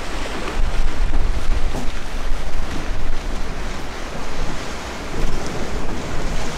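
Wind buffeting the microphone, with an even rushing noise and an uneven low rumble that rises and falls in gusts.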